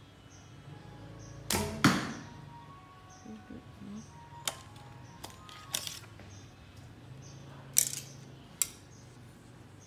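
Recurve bow shot: the string snaps forward on release about a second and a half in, and the arrow strikes the target a moment later. Then several light clicks and taps as the next arrow is handled and set on the bow.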